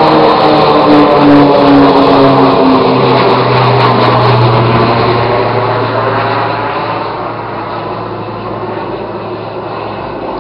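Low-flying aircraft passing overhead, the engine tone falling in pitch as it goes by and fading away over the second half.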